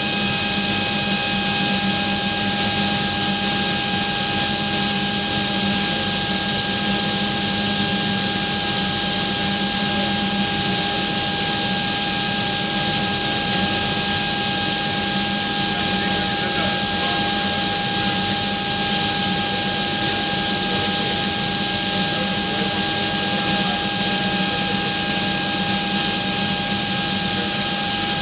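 Atlas Copco ZR 315 VSD two-stage oil-free rotary screw air compressor running at full speed (about 3000 rpm) while outlet pressure builds. It is a steady, loud machine sound: a constant high whine with lower hums over a broad rushing hiss.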